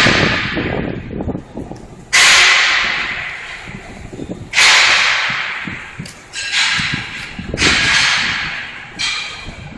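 Loud metal banging from inside a building: five heavy metallic strikes, each ringing and fading out, coming at irregular intervals of one to two and a half seconds.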